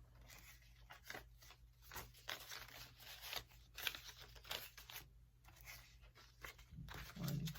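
Faint rustling and crinkling of paper bills and envelopes being handled, in a string of short, irregular scrapes.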